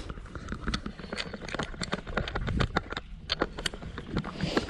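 Irregular knocks, clicks and rustles of a person moving about on a weedy, muddy shore in sandals, with clothing brushing against the camera, over a steady low rumble.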